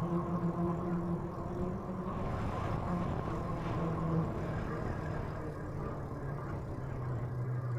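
A steady motor hum over a haze of wind and road noise. Its pitch sinks slowly through the second half.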